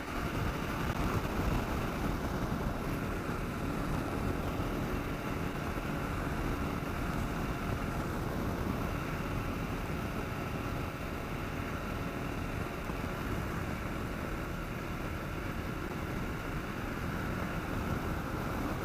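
Wind noise buffeting the microphone while riding a 2009 Kawasaki KLR 650, with the bike's single-cylinder engine running steadily underneath.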